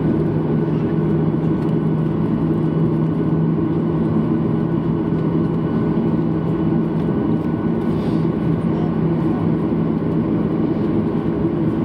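Steady cabin noise inside a Boeing 737-800 as it taxis, heard at the wing: a constant rumble from its CFM56-7B engines at taxi power, with a steady low hum running through it.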